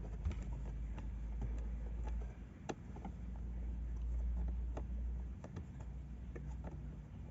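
Scattered small clicks and taps of hands working a fuse into a car's fuse box, over a low rumble of handling noise.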